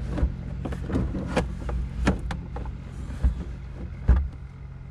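Hard plastic centre console and cup holder unit of a Jeep Wrangler TJ being lifted and slid out, giving a string of irregular knocks and clunks, the loudest about four seconds in.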